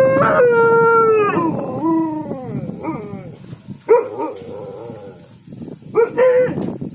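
Alaskan malamute howling: one long drawn-out call that falls in pitch, followed by a string of shorter calls, the last of them near the end.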